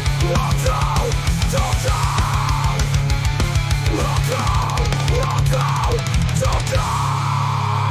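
Suno AI-generated metal-punk song: fast, dense drumming with a driving bass drum under heavy guitars, played at full intensity.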